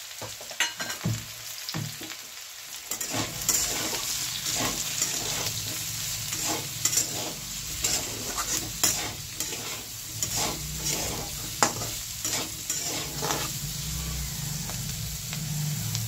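A spatula scraping and stirring diced potatoes and cauliflower in a kadhai, with frequent short strokes over the steady sizzle of hot oil, as the dry spice powders are fried into the vegetables. A low hum runs underneath from about three seconds in.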